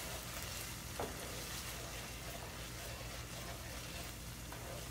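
Thick onion-tomato masala sizzling quietly in a sauté pan as it is stirred with a wooden spoon, with a light knock of the spoon against the pan about a second in.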